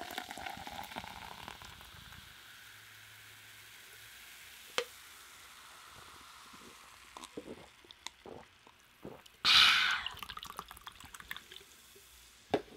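Sparkling water poured from an aluminium can into a metal cup, with a crackling fizz that fades over the first few seconds as the bubbles settle. Then small clicks of sipping and swallowing, and a short loud breathy exhale about nine and a half seconds in.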